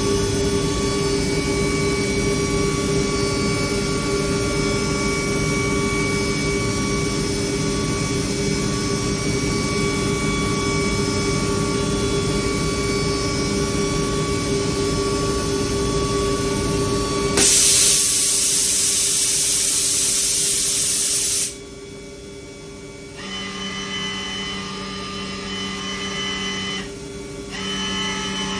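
DMG DMU 50 eVolution 5-axis CNC machining center running, with a steady whine made of several tones. About 17 seconds in a loud hiss starts and lasts about four seconds, then cuts off sharply. After that the machine runs more quietly, with a low hum that switches on and off twice.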